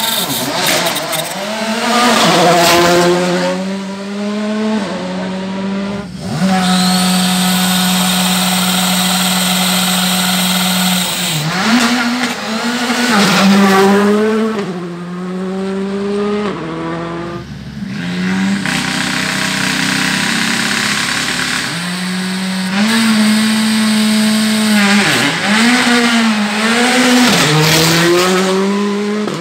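Rally car engine running hard on a special stage, its revs climbing and dropping again and again through gear changes, with stretches held at a steady pitch.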